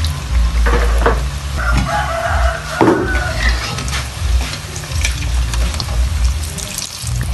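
Food frying in a pan and being stirred, with scattered clicks of the utensil. A rooster crows in the background starting about a second and a half in.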